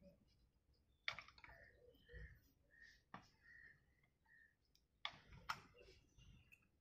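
Faint, sharp clicks and clinks of metal tools and parts being handled during a brake job, a few separate clicks about a second in, around three seconds and near five seconds.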